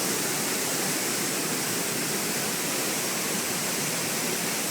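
Steady rush of a waterfall pouring into its pool.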